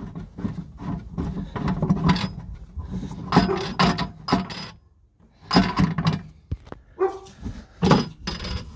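A dog barking repeatedly in short, sharp barks, with a brief pause about five seconds in.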